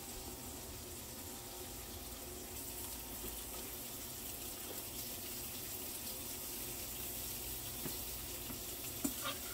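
Sliced smoked sausage sizzling as it browns in a skillet, a steady hiss, with a couple of light clicks of a utensil against the pan near the end.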